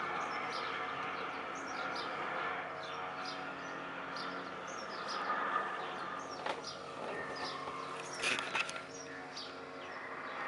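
Small birds chirping in short, quick falling calls over a steady drone of several held tones, the unexplained 'strange sound from the sky' this recording sets out to capture. A few sharp clicks come about six and a half and eight seconds in.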